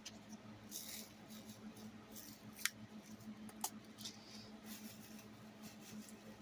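Faint clicks and a light rattle of diamond-painting work: small resin drills shifting in a tray and a drill pen tapping them onto the canvas, with a few sharper clicks about a third and halfway in. A low steady hum runs underneath.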